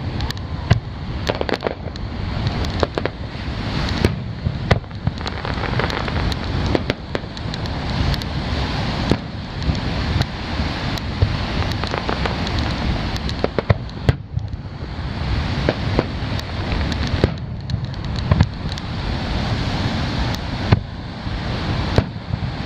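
Aerial firework shells bursting in a rapid, irregular series of sharp bangs and crackles, over a steady low rumble.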